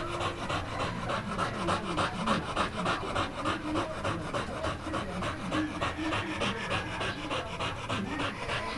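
American Pit Bull Terrier panting hard with its tongue out, quick breaths in an even rhythm.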